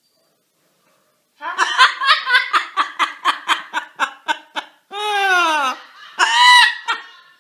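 Parrot mimicking human laughter: a quick run of 'ha-ha-ha' bursts, about five a second, starting about a second and a half in, then two drawn-out whooping calls, the first sliding down in pitch.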